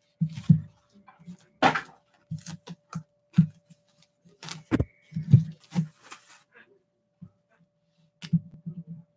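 A cardboard comic book mailer being handled and opened on a desk: a run of short, irregular rustles, scrapes and dull thumps, with two sharper cracks, about two seconds in and near the middle.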